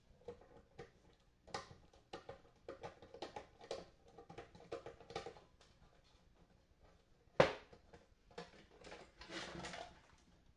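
Light clicks and taps of a screwdriver and small parts being handled while a guitar amp is taken apart, with one sharp knock about seven seconds in and a short scraping rustle near the end.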